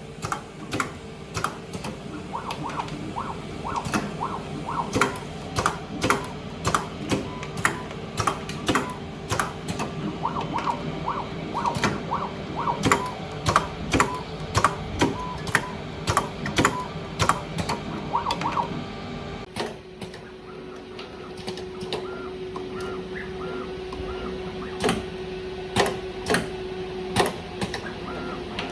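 Automatic wire stripping and bending machine running: a steady motor hum under a string of sharp clacks, about one or two a second, as it works the wire. After about twenty seconds the clacks thin out and short, repeated high tones sound over the hum.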